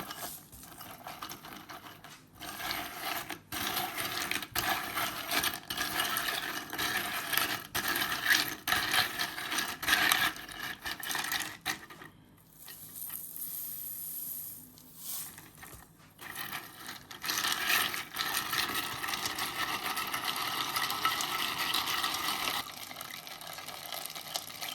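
Lye being stirred into frozen nettle-tea ice cubes in a container, with irregular clinks, rattles and scraping as the ice knocks about. It eases off for a few seconds midway, then picks up again.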